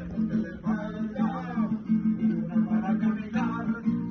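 Mariachi-style serenade: an acoustic guitar strummed in a steady rhythm, with a man singing over it.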